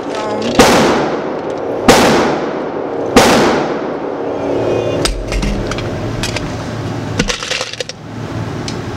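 Three gunshots, roughly one and a quarter seconds apart, each with a long echo off the walls of an indoor shooting range. Lighter clicks and knocks follow in the second half.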